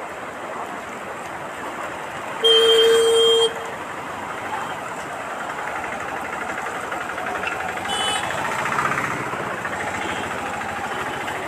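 Floodwater rushing across a street, a steady noise. A horn sounds once, a steady tone held for about a second, starting about two and a half seconds in; it is the loudest thing heard.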